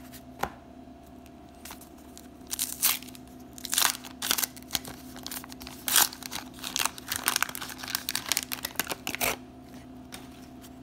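Wax-paper wrapper of a 1991 Donruss baseball card pack being torn open and crinkled by hand: a run of crackling rips that begins a couple of seconds in and stops shortly before the end.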